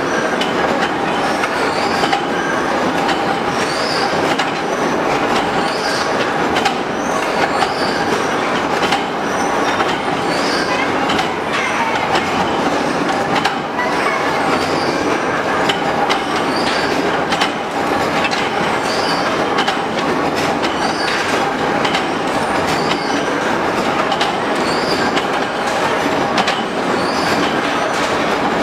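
Induction forging line with an automatic bar feeder running: a continuous metallic clatter and rattle under a steady tone, with a short high chirp about every second and a half.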